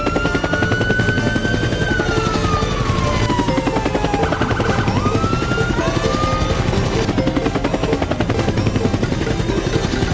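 Toy helicopter's electronic sound effects: a fast, even rotor-chop sound with a steady high whine, beeping tones and gliding whistle-like tones over it. One tone rises and then slowly falls over the first few seconds, and another rises about two-thirds of the way in.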